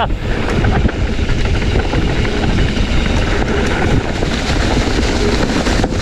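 Loud, steady rush of wind on an action camera's microphone, with the rattle of a mountain bike over rough dirt trail on a fast descent.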